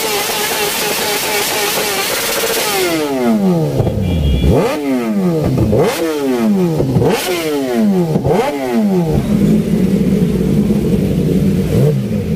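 Motorcycle engine running at a steady note, then its revs swinging down and sharply back up about four times in quick succession a few seconds in, before settling to a lower steady note.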